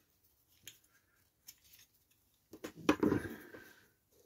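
Light clicks and rubbing of small diecast model parts handled on a bench, then a louder scrape about three seconds in as a melted part is worked loose from the model.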